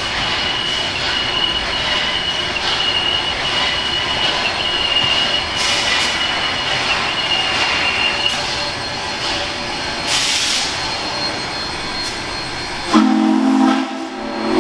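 Southern 630, a 2-8-0 steam locomotive, running toward the listener with a steady high-pitched wheel-flange squeal on the curve for the first eight seconds or so, over a steady run of exhaust and rail noise. Near the end its steam whistle sounds a loud chord that breaks off briefly and starts again.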